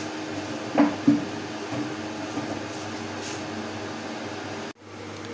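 A small motor humming steadily, with two short louder sounds about a second in; the sound cuts out abruptly near the end.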